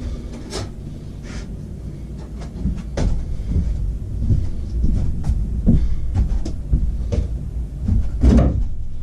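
Irregular knocks, clicks and clunks of metal fork parts being handled during a motorcycle front-fork rebuild, over a low rumble of handling noise.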